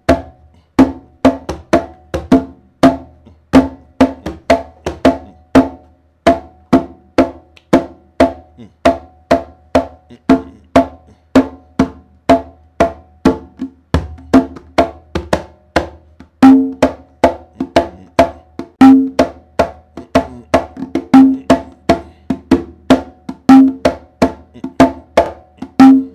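Congas played with bare hands in a steady 6/8 clave rhythm: crisp open tones and sharp strokes over a drumming pulse. There is a short break about six seconds in, and deeper bass strokes join about halfway through, with a louder accent roughly every two and a half seconds.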